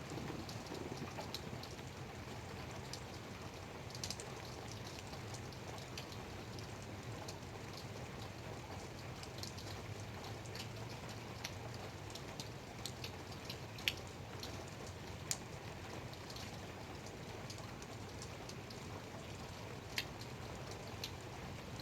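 Light rain falling steadily, with scattered individual drops landing close by as sharp ticks; a few land louder, about two-thirds of the way through and again near the end.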